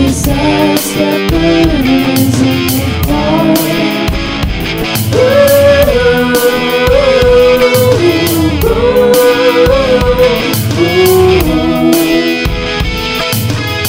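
Rock band music: guitar and drum kit under a lead line holding long, slightly bending notes.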